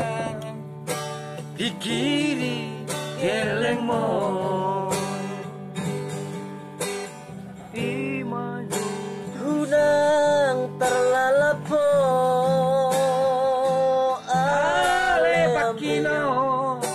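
A man singing a Batak song while strumming an acoustic guitar. From about ten seconds in, he holds long notes with vibrato.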